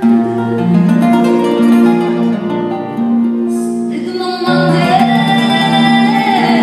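Live music: a woman sings into a microphone over plucked acoustic guitar accompaniment, with a wavering held note in the second half.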